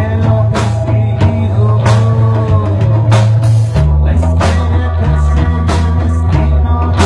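Rock music with a loud bass line stepping between notes under repeated drum hits.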